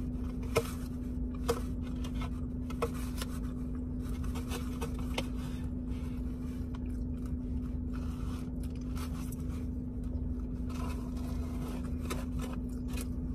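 Quiet eating noises of a person chewing and handling food, with a few small sharp clicks, over a steady low hum.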